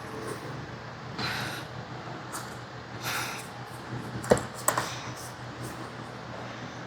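Handling noises from fitting a light bracket to a plastic welding helmet: a few short rustles and scrapes, then two sharp clicks about half a second apart, over a steady low hum.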